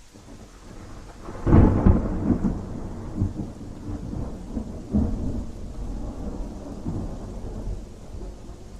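A thunderclap over steady rain: a loud crack about a second and a half in, a second peak about five seconds in, then a long rolling rumble that fades away.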